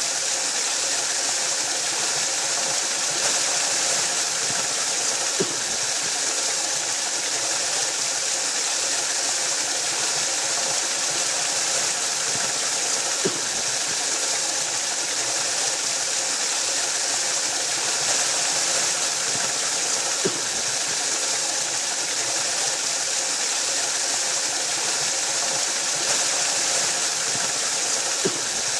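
Waterfall rushing steadily, an even hiss-like roar of falling water, with a faint click about every seven or eight seconds.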